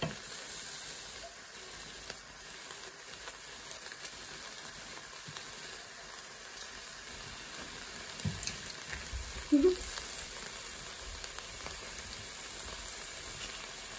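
Thinly sliced bacon sizzling steadily in a stainless steel Saladmaster skillet, with small clicks from metal tongs and kitchen scissors working the slices and one brief louder knock about ten seconds in.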